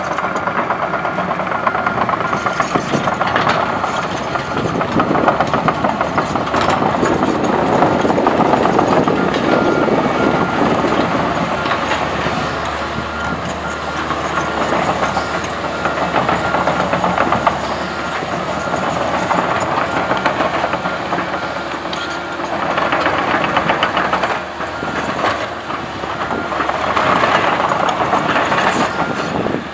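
Komatsu PC130 hydraulic excavator at work levelling soil: its diesel engine runs steadily under load with a rattling, clanking mechanical noise. The sound swells and eases several times as the machine works.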